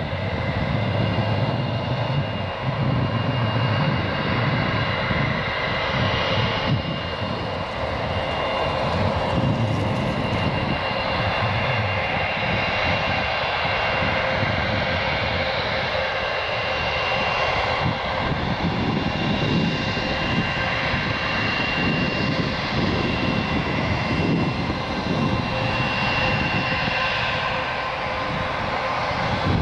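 Airbus A319's twin jet engines running at taxi power while the airliner rolls slowly along the runway and turns. The sound is a steady low rumble with a few held high whining tones from the engine fans.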